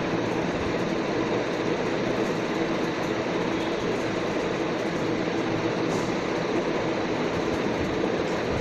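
Steady background drone: an even rushing noise with a faint low hum, unchanging throughout.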